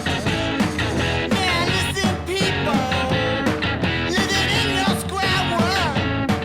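1960s garage punk record: a rock band of electric guitar, bass and drums playing at a steady driving beat, with sliding pitch bends.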